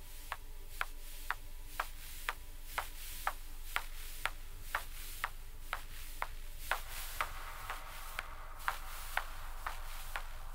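Steady clock-like ticking, about two ticks a second, over a faint steady hum, with a soft hiss rising briefly about seven seconds in.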